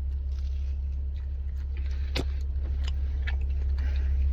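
Small clicks and rustles of a slice of birria pizza being dipped in sauce and bitten, over a steady low hum.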